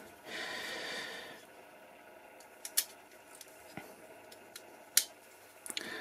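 A short breath out through the nose, then light clicks and taps of a stainless-steel Leatherman multitool being handled as its serrated blade is opened, with two sharper clicks about two seconds apart.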